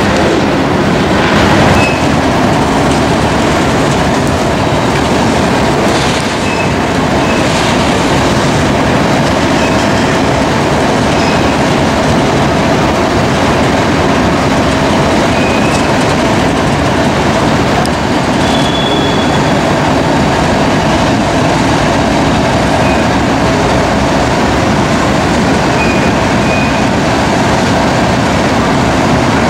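Freight train of covered hopper cars rolling past: a steady rumble of steel wheels on rail, with a few brief high wheel squeals scattered through.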